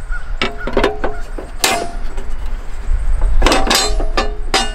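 Grill grates knocking and clinking as they are set back into the frame of a small portable propane grill. A few ringing knocks come about half a second and a second and a half in, then a quick cluster near the end, over a steady low rumble.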